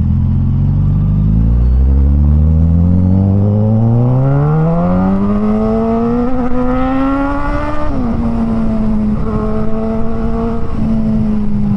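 Suzuki GSX-S1000's inline-four engine, ECU remapped and fitted with a Firetong Willy Made exhaust, heard from the rider's seat under way. Its revs climb smoothly for several seconds as it pulls, drop sharply about eight seconds in, then hold steady.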